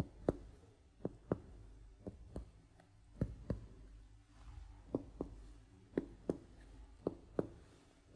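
Clinical percussion of a patient's abdomen: a doctor's finger tapping on a finger laid flat on the belly, giving soft taps mostly in pairs about a quarter-second apart, a new pair every second or so. It is the percussion step of an abdominal examination, mapping the edges of an enlarged liver and spleen.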